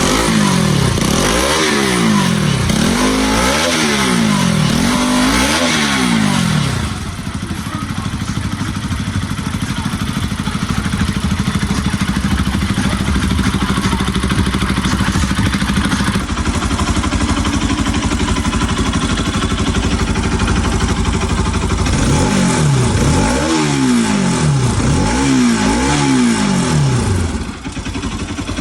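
Bajaj Pulsar 200's single-cylinder engine running after a timing-chain repair, blipped up and down several times, then idling steadily, then blipped a few more times near the end. It runs without odd noises, the chain back in time.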